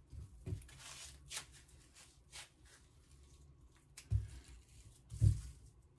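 Light rustling and scraping of plastic wrap and twine as a plastic-wrapped foie gras torchon is tied with string, with two low thumps about four and five seconds in as the roll is knocked against the granite countertop.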